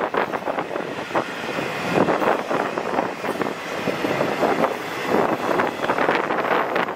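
Intermodal freight train cars carrying trailers and stacked containers rolling past, a steady rumble of wheels on rail with irregular clicks and knocks running through it.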